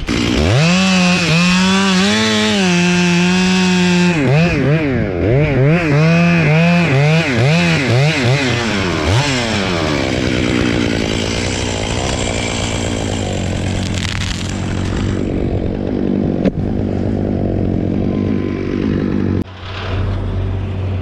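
Gas chainsaw cutting into a tulip poplar trunk: it runs at a steady high pitch, its pitch then swings up and down repeatedly for several seconds, and it settles into a rougher, lower note under load before dropping briefly near the end to a lower, steady running note.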